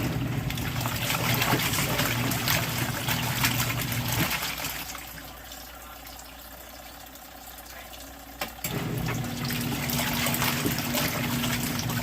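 Water running from a shower hose into a portable washing machine's tub as it fills. A low steady hum runs alongside, cuts out about four seconds in, and comes back near nine seconds.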